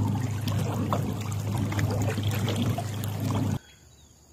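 Water trickling and splashing against a moving kayak's hull, over a steady low hum; the sound cuts off abruptly about three and a half seconds in.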